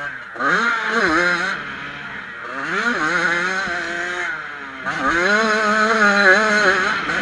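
Yamaha YZ85 two-stroke dirt bike engine heard from the rider's helmet, revving up three times as the throttle opens and falling back in pitch between each.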